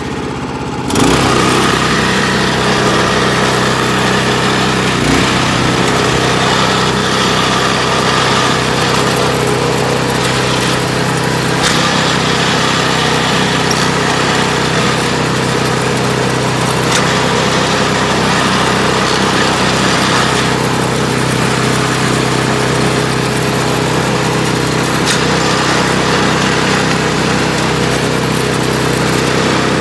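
Harbor Freight Predator 212cc single-cylinder engine on a snowblower, throttled up about a second in and then running steadily at high speed.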